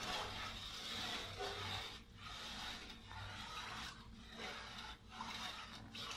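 Wooden spoon stirring thick, simmering milk rice in a pot, scraping and rubbing along the bottom in strokes about once a second. The constant stirring keeps the thickening rice pudding from sticking and burning.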